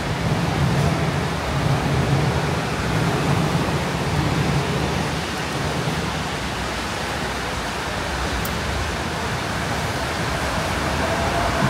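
Steady hiss of falling rain over a low rumble of street traffic, the rumble stronger in the first few seconds and again near the end.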